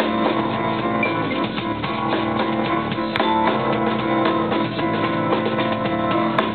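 Live band playing an instrumental passage: electric guitar over a drum kit.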